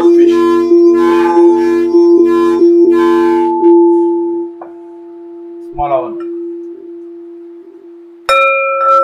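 Large black metal singing bowl sung by rubbing a wooden striker round its rim: a steady deep hum with a swish at each turn of the stick. About four seconds in the rubbing stops and the bowl rings on by itself. Near the end a smaller brass singing bowl is struck, adding a higher ringing tone over the hum.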